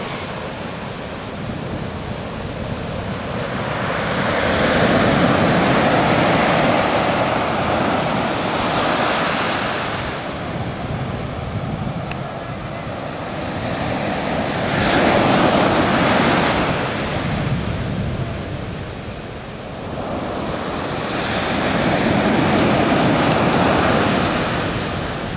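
Ocean surf breaking and washing up a sandy beach, a steady rush that swells loud three times, about every seven seconds, as waves come in.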